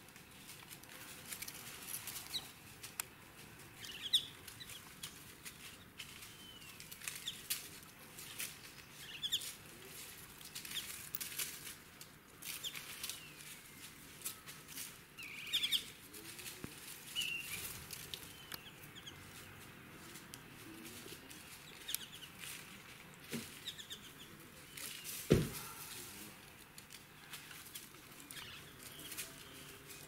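White-throated laughingthrushes foraging in dry leaf litter: repeated rustling of leaves, with frequent short bird calls scattered throughout. A single loud thump comes late on.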